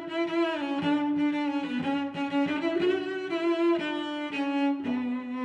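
Background music: a pitched melody of held notes, some sliding from one pitch to the next.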